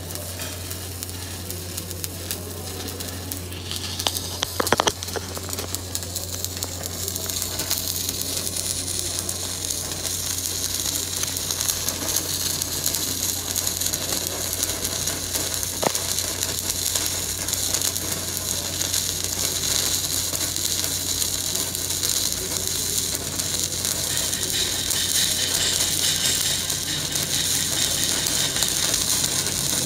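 Stick welding arc on steel plate crackling and sizzling steadily, growing a little louder as the bead runs, over a steady low hum. A couple of brief clicks.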